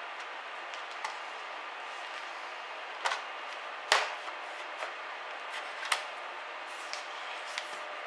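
A plastic opening pick prying along the seam of a laptop's aluminium bottom panel: several sharp clicks and taps at irregular intervals, the loudest about four seconds in, over a steady hiss.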